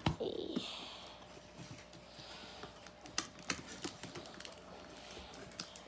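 Sticky tape being picked at and peeled off a small cardboard box: scattered light clicks and taps, with a couple of short scratchy rasps.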